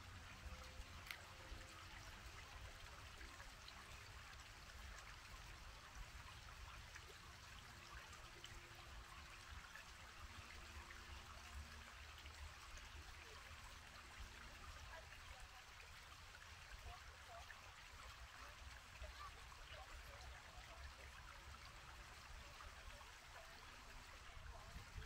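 Faint, steady sound of flowing water, like a small stream trickling, over a low rumble, with a single brief tick about a second in.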